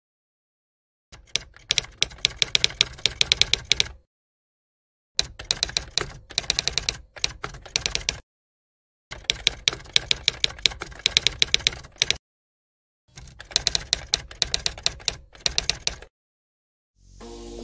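Typing sound effect: four bursts of rapid typewriter-like key clicks, each about three seconds long, separated by about a second of dead silence. Music starts near the end.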